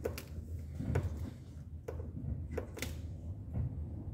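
Light clicks about a second apart over a steady low hum: the brake pedal being pumped from inside the car to build pressure while the brakes are bled.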